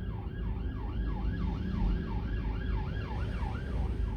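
Police siren on a fast yelp, quick rising-and-falling sweeps about three a second, heard from inside a car's cabin over the low rumble of the car in traffic.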